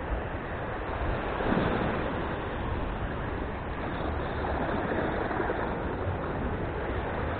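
Sea surf breaking and washing over shore rocks, a steady rushing noise that swells about a second and a half in.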